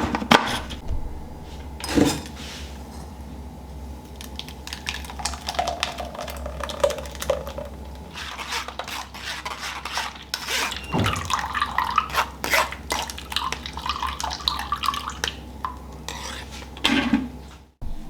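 Dishes and cutlery clinking and knocking, many scattered irregular clicks over a low steady hum.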